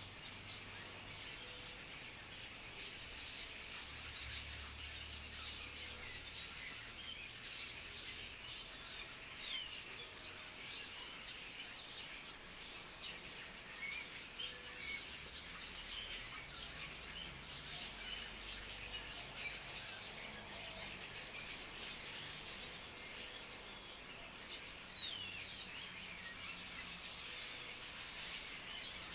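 Continuous dense chatter of many short calls and whistles from a flock of starlings in a murmuration, with a few louder calls about two-thirds of the way through.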